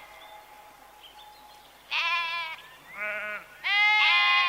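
Bleating livestock: three separate bleats, a short one about two seconds in, a lower, shorter one a second later, and a longer one near the end.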